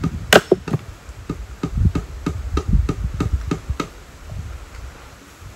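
Repeated wooden knocks, about three to four a second, from an axe being rehafted: the head and a wedge are hammered onto the wooden handle. The first blow is the loudest, and the knocking stops about four seconds in.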